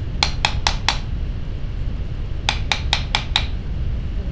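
Copper hammer tapping a dapping punch to flare the end of a tube rivet: four quick light taps, a pause, then five more, each a short metallic tick.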